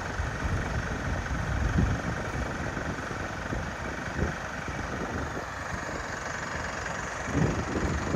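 Fire engine idling steadily, with an uneven low rumble running through it and no siren sounding.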